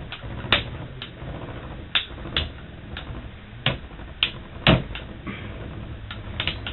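Metal Beyblade spinning tops clashing in a stadium: about a dozen sharp, irregular clicks and knocks as the tops hit each other and the stadium wall.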